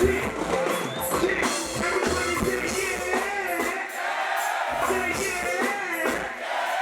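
Music with a singing voice over drums.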